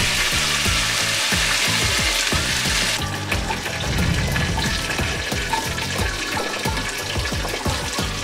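Hot oil sizzling with curry leaves and green chillies in a pressure cooker. About three seconds in the sizzle abruptly turns quieter, leaving a softer frying crackle.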